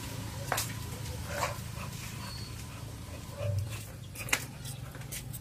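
A young American bully dog on a leash, its faint dog sounds over a steady low hum, with sharp clicks about half a second, a second and a half, and four and a half seconds in.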